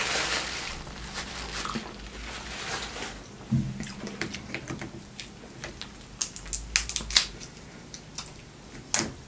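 Snow crab leg shells being cracked and pulled apart by hand: a run of sharp cracks and snaps, loudest near the end. A napkin rustles briefly at the start.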